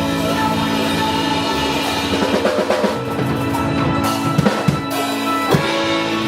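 A band playing, with a drum kit running a fill of quick hits over held chords.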